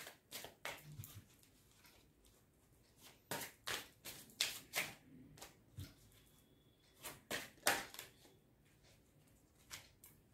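A deck of angel oracle cards being handled and shuffled by hand: irregular short card flicks and rustles, with the busiest stretches a few seconds in and about seven seconds in.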